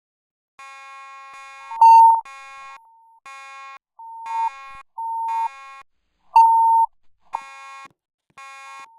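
Fire alarm signals beeping in pulses about once a second, starting about half a second in. A buzzy, many-toned beep alternates with a purer, louder beep from a second device, which comes in strongest about two seconds in and again midway.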